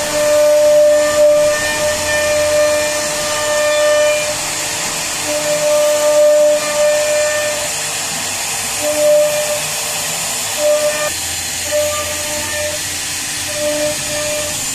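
CNC router spindle cutting a carved pattern into wood. A steady hiss runs throughout, and a whining tone sounds in stretches of a second or several as the bit bites, then drops back.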